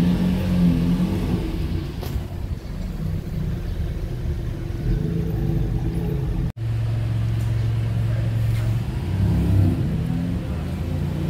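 BMW M2's engine pulling away at low revs, a little louder at first. Then, after a sudden cut about six and a half seconds in, a Maserati MC20's twin-turbo V6 runs steadily at low revs as it creeps out, its note rising and falling a little near the end.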